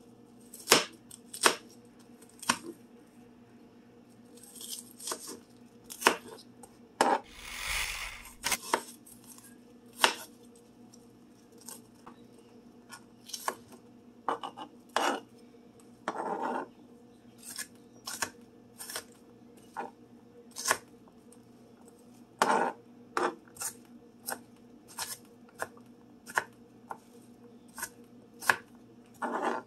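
Kitchen knife chopping an onion on a plastic cutting board: sharp, irregularly spaced knocks of the blade on the board, with a few longer scraping sounds in between.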